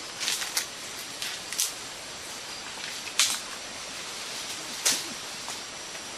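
A man climbing a slender tree through foliage: about five sharp, short swishes of branches and leaves, over a steady hiss.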